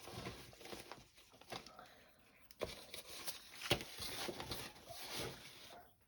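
Paper sheets rustling and crinkling as they are handled, with a few sharp taps.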